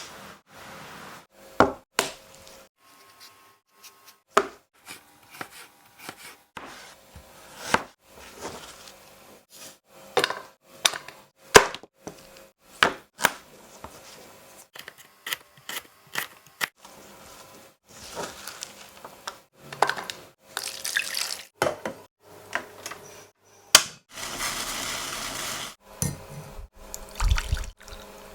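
Kitchen preparation sounds: scattered knocks and clinks of utensils and dishes, with a few seconds of running water near the end.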